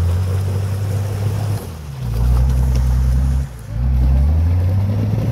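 An off-road 4x4's engine running loud and close, its pitch stepping up and down every second or two as the throttle is worked.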